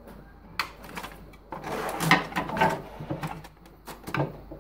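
Knocks, clicks and scraping of a plastic inkjet printer body being handled and shifted around on a table.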